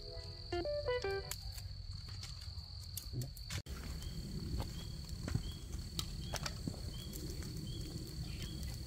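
Crickets trilling steadily in the evening, one high continuous tone with a few short chirps repeating about every half second. Scattered light clicks and a low rumble lie beneath.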